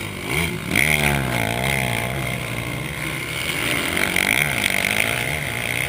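Motocross dirt bikes riding through a berm corner, their engines revving up and down as the riders throttle through the turn. One bike passes close and loudest about a second in, and another comes through around four to five seconds in.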